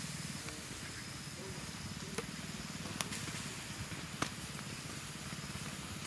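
Lake snails sizzling on a wire grill over a charcoal fire: a steady hiss with three sharp pops scattered through it.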